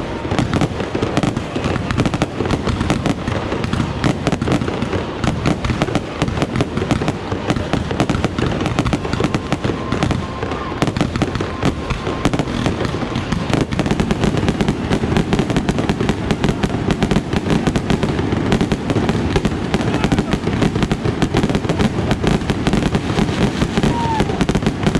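Stadium fireworks show going off in a rapid, unbroken barrage of bangs and crackles.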